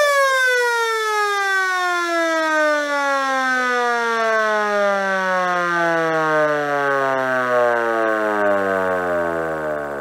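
1940s Federal Electric Model A-5 electric siren winding down from full speed: its single wail falls slowly and smoothly in pitch, softening a little near the end. The long wind-down comes from the heavy cast-iron chopper, spun by an oversized 1/4 HP motor, coasting to a stop.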